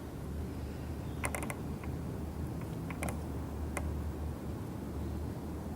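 A handful of short clicks and creaks from work on a fishing rod's thread wrap as the threads are burnished and pressed together, over a steady low hum.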